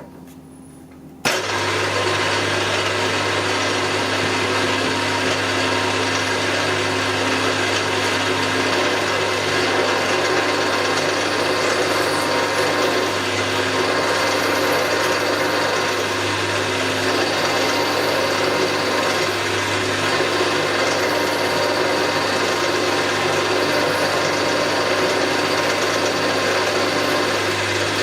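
A milling machine's electric motor and spindle drive switch on about a second in, then run steadily with a low hum and a whir of several steady tones.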